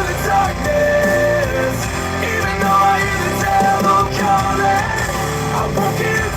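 A rock song playing steadily, with singing.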